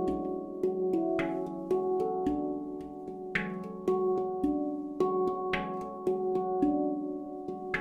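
Kosmosky 18-note handpan in F# Pygmy scale played with the fingertips: a steady flow of ringing steel notes, several strikes a second, with a brighter, louder accent about every two seconds.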